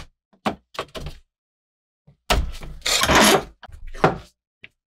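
Cast-iron bench vise being set up: a few sharp knocks as plastic soft-jaw pads go onto the jaws, then a longer stretch of clatter near the middle as a thin metal sheet is set between them and the vise is tightened.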